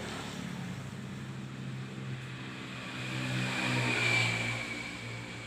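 A motor vehicle's engine running, growing louder about three seconds in, then fading again near the end.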